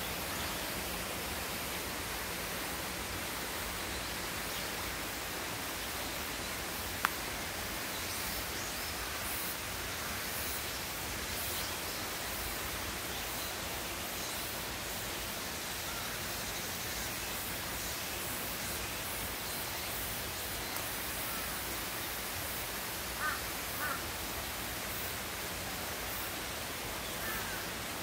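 Steady rushing of a mountain valley stream, an even wash of water noise. A single sharp click sounds about a quarter of the way through, and two short calls come near the end.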